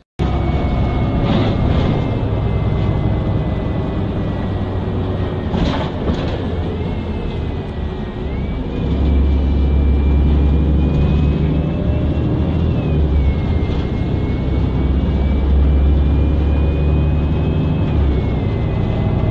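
Interior of a moving city bus: a steady low rumble from the drive and road, swelling at times, with a thin high whine that slowly rises and falls. A couple of short knocks are heard early on and about six seconds in.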